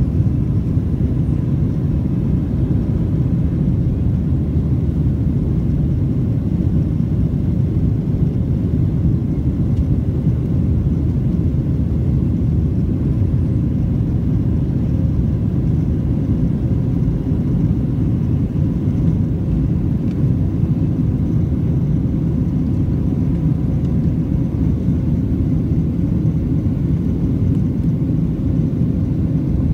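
Steady low cabin rumble of a Southwest Boeing 737 climbing out after takeoff, its engines and the airflow heard from a window seat inside the cabin, with a faint steady whine above the rumble.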